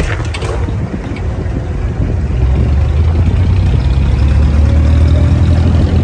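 A Dubai Creek abra's diesel engine starting abruptly with a brief clatter, then running steadily with a low drone that grows louder from about two seconds in.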